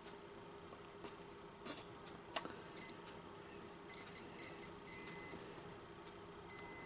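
Continuity buzzer of a DT9205A digital multimeter beeping as the probe tips touch the power MOSFET pads on a circuit board: a few light taps of the probes, then a string of short chirps and two longer beeps. The beeps mark the transistors as shorted.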